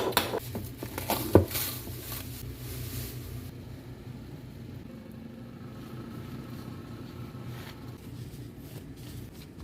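A few knocks and clinks of a kitchen utensil against a bowl or pan in the first second and a half, then quiet handling over a low steady hum.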